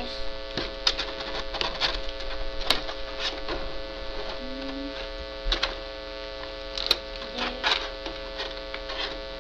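Steady electrical hum under irregular sharp clicks and light knocks of small plastic toy parts, as Beyblade pieces are pried out of their packaging.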